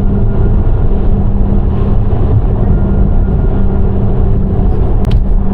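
Subaru WRX driving along: steady road and engine noise with a constant low drone. A short click about five seconds in.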